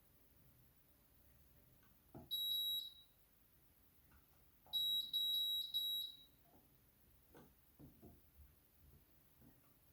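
Candy washing machine's control panel beeping as the programme selector knob is turned: one high beep about two seconds in, then a quick run of four beeps, with faint clicks of the knob around them. The owner says the programme selector is acting up.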